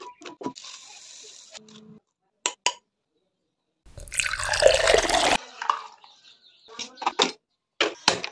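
Water poured from above into a metal pressure cooker over chopped bottle gourd and spices, splashing and filling for about a second and a half midway through. Short clicks and knocks come before and after it.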